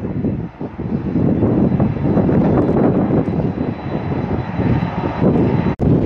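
Jet engines of a Japan Airlines Boeing 777 running on the runway: a loud, steady rushing noise. It drops out for an instant near the end.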